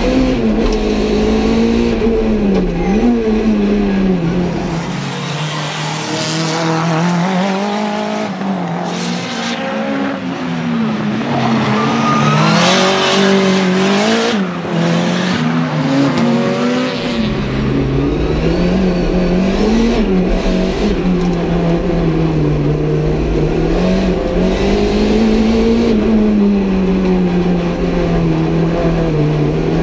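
Renault 5 GT Turbo's turbocharged 1.4-litre four-cylinder engine, tuned to about 300 hp, pulling hard round a track: the revs climb and drop again and again through gear changes and corners. Mostly heard from inside the cabin, with a stretch in the middle heard from trackside as the car goes by.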